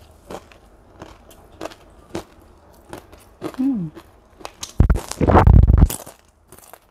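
Close-up crunching and chewing of a crisp fried cracker, with sharp crackly bites at irregular intervals and one short falling hum from the eater about three and a half seconds in. About five seconds in comes a loud, muffled rumble lasting about a second, the loudest sound here.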